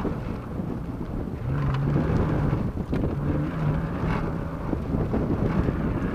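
BMW E36 driven hard on a dirt rallycross course: its engine running under load, holding a steady note for a couple of seconds midway, under heavy wind buffeting on the microphone and rumble from the tyres on dirt.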